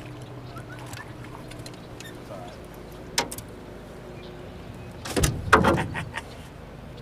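A steady low hum of a small motor, with a single sharp click about three seconds in and a loud cluster of knocks and thumps between five and six seconds in.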